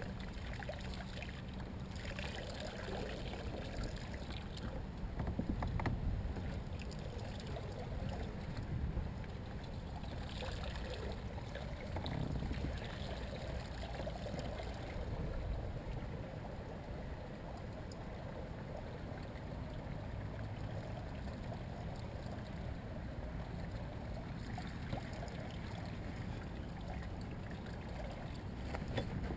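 Water trickling and light splashing as a soaked life jacket is handled aboard a kayak, over a steady low rumble, with a few brief rustles.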